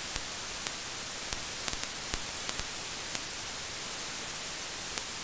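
Steady hiss of a Behringer X32 digital mixer's preamp noise floor with its input shorted, as the channel gain is turned up toward +10 dB. Brief clicks come irregularly through the hiss as the gain steps up.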